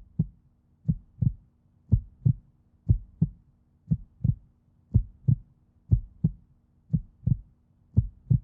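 Heartbeat sound effect: paired low thumps (lub-dub) about once a second, over a faint steady low hum.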